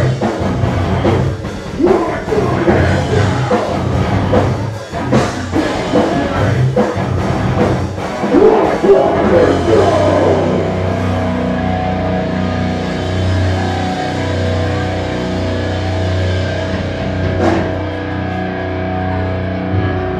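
Live rock band with drums, electric guitars and vocals, heard from within the audience. About halfway through, the drums and singing stop and a steady held guitar tone rings on.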